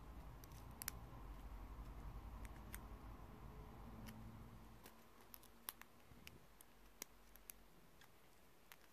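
Faint, scattered small clicks and ticks as the uncoiled steel clock spring and plastic parts of a wind-up chattering-teeth toy's mechanism are handled. A soft low rumble of handling fades out about halfway through.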